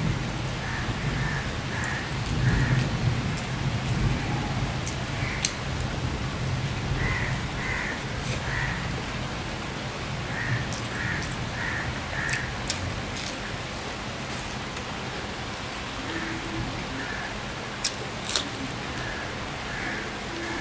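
Steady rain falling outside, a soft even hiss, with a bird calling in several runs of three or four short repeated calls.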